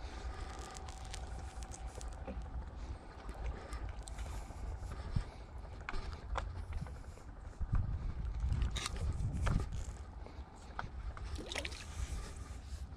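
Low steady rumble of a small boat on the water, with scattered light clicks and knocks; the rumble swells for a couple of seconds about eight seconds in.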